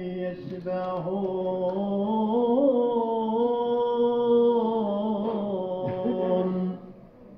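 A man reciting the Quran in a slow, melodic chant through a microphone, holding long notes with a rise in pitch partway through. The voice breaks off near the end.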